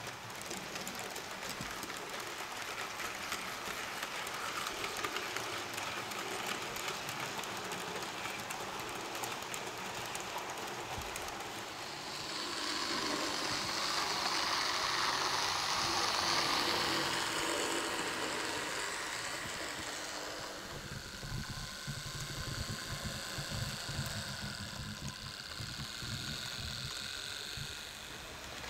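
Model trains running on track, with a steady rolling noise that grows louder for several seconds about midway. In the last third a rhythmic low clatter or chuff comes in.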